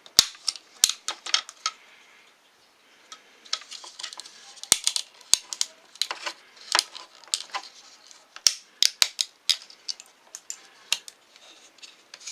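Support material being snapped and picked off a freshly 3D-printed plastic part: irregular sharp plastic clicks and cracks, with short pauses between them.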